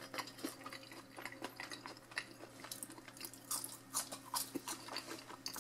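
Someone chewing a mouthful of French fries with fried onions and garlic: quiet, irregular mouth clicks.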